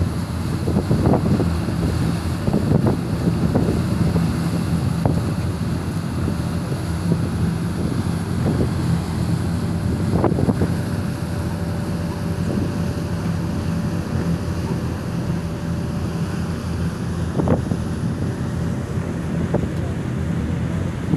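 Passenger ferry underway: the steady low drone of its engine under the rushing wash of its wake, with wind buffeting the microphone.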